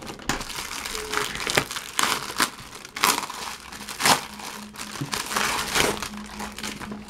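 Clear plastic wrapping crinkling and crackling as it is pulled off a fabric mini mat, with a run of sharp crackles, loudest about three and four seconds in.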